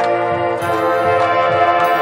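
High school marching band playing: brass holding loud sustained chords that change about half a second in, over regular drum hits.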